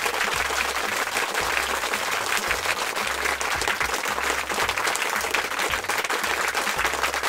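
A crowd applauding: dense, steady clapping, with a low regular pulse underneath.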